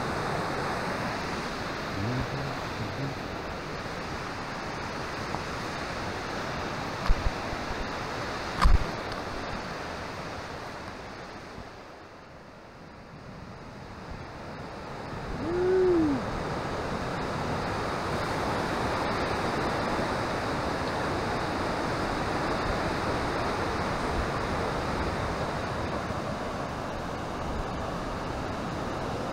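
River in full spring runoff rushing through a rock canyon: a steady whitewater rush, fading for a few seconds just before halfway and then coming back. A couple of sharp knocks sound about a quarter of the way in, and a brief tone rises and falls just past halfway.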